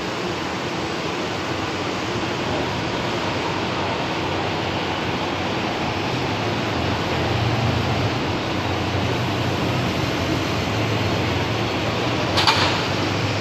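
Buses moving through a bus interchange: a steady wash of engine and ventilation noise, with a low engine hum that grows louder from about halfway as a bus pulls past and another drives up. A brief sharp sound near the end.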